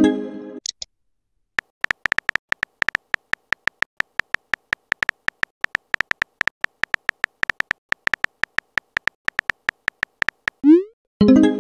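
Messaging-app sound effects: a chime at the start as a message is sent, then a quick, irregular run of short electronic key-tap clicks as a message is typed, then a rising whoosh and another chime near the end as it is sent.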